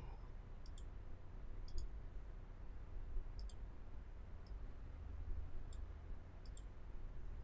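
Computer mouse clicking about six times, spaced out, each a quick double tick, over a faint low hum.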